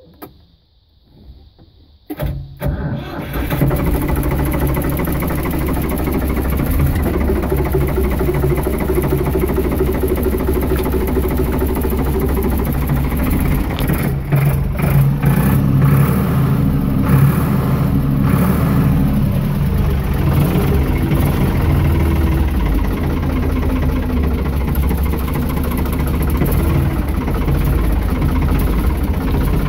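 Ford 3610 tractor's three-cylinder engine starting up about two seconds in, then running at a steady idle, with a brief unsteady spell about halfway through.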